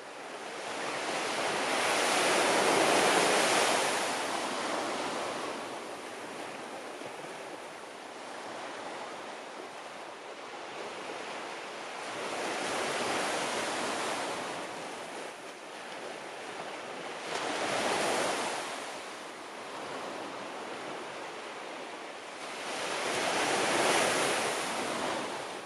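Surf on a beach: waves breaking and washing in, the noise swelling and fading four times, loudest about three seconds in.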